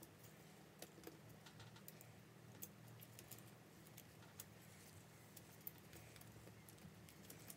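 Near silence with a faint low hum and scattered small clicks: tweezers and small iPhone 6 parts being handled on a silicone repair mat.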